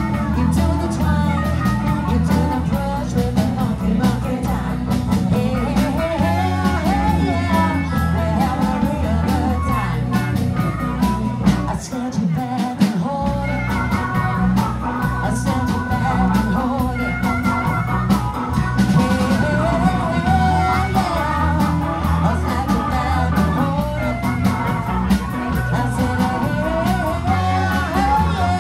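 Live blues band playing: drum kit, bass guitar and keyboard keep a steady beat, with a wavering lead melody over the top.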